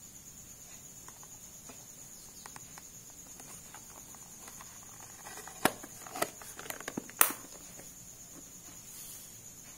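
Plastic accessory case being handled and its clear lid closed: a cluster of clicks and light knocks with two sharp plastic snaps, one about five and a half seconds in and one about seven seconds in, over a faint steady high tone.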